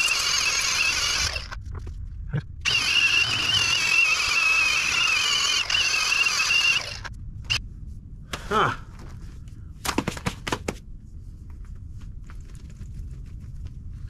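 A cordless drill spinning an abrasive wheel against a sailboat keel, grinding off soft, badly cured fairing compound: a loud, wavering whine in two runs, the first stopping about a second and a half in, the second from about three seconds in to about seven. A few short knocks follow as the tool is handled.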